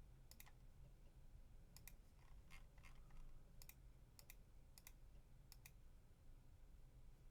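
Faint computer mouse clicks, mostly in quick pairs, about eight times at irregular intervals, over a low steady hum.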